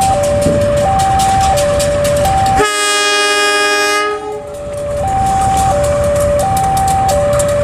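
Diesel locomotive horn sounds one blast about two and a half seconds in, lasting about a second and a half, as the train starts to depart. Underneath, a two-tone electronic warning signal alternates steadily between a higher and a lower note, over the low rumble of the idling diesel locomotives.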